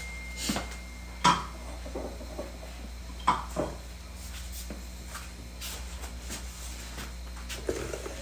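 A few knocks and clatters of metal pans being set on a gas stove's grates, the sharpest about a second in and another about three seconds in, over a low steady hum.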